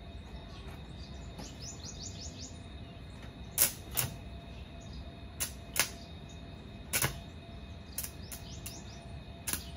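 Arc welder striking a series of short tack welds on steel: about eight brief, sharp crackling bursts, irregularly spaced, beginning a few seconds in.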